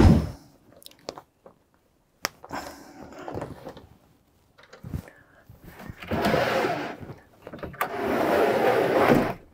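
Heavy cloth curtains being drawn across a motorhome's cab windows: the fabric rustles and the runners slide along the rail. There is a sharp click about two seconds in, then two longer, louder swishes in the second half.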